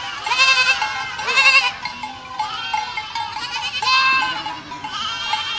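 A herd of goats bleating: many overlapping, wavering calls from several animals at once, loudest about half a second in, around a second and a half in, and about four seconds in.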